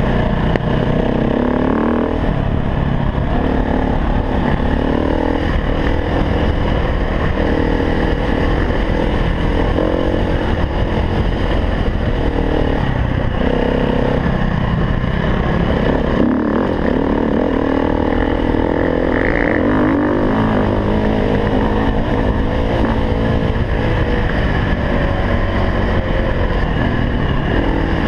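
KTM 350 EXC-F's single-cylinder four-stroke engine running hard off-road, its revs rising and falling again and again as the throttle is opened and shut.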